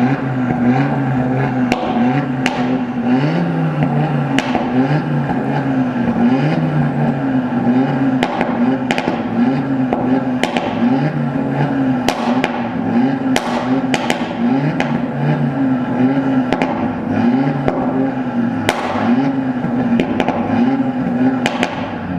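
Audi RS3 8V's turbocharged 2.5-litre five-cylinder engine being revved again and again through its sports exhaust, the pitch rising and falling in quick blips, with sharp pops and crackles from the exhaust.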